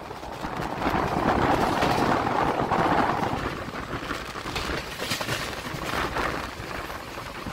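Indian Railways LHB coaches running on the track: a steady rushing rumble of wheels on rails, louder for the first three seconds or so and then easing, with a few sharp clicks in the second half.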